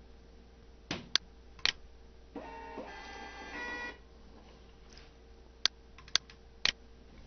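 DYMO LabelWriter 450 Twin Turbo thermal label printer feeding out a file folder label: a motor whir lasting about a second and a half, its pitch stepping up near the end. A few sharp clicks come before and after it.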